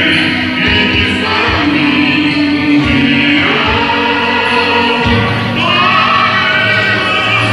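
A group of students singing together as a rehearsed choir over backing music with a low bass line.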